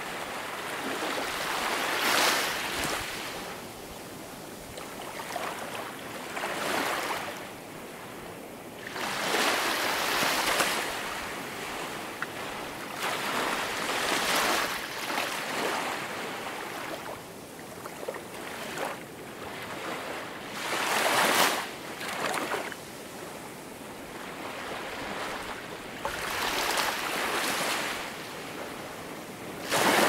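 Small waves washing up a pebble shore, each surge a rush of hissing water, coming every few seconds over a steady background wash.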